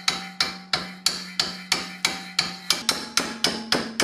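Steady hammer blows, about three a second, on a brass fork blank being bent over a round metal tube held in a vise. Each blow rings with a short metallic tone, and the pitch of that ring steps slightly higher about three seconds in.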